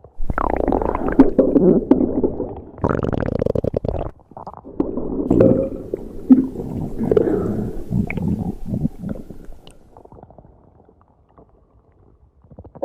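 Stomach digesting, with irregular wet gurgles and rumbles. They are loudest for the first four seconds, then softer and thinning out, until it is nearly quiet for the last few seconds.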